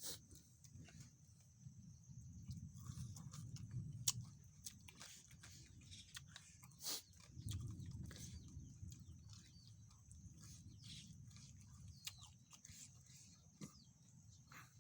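Faint outdoor background: birds chirping over a steady high insect drone, with scattered clicks and swells of low rumble.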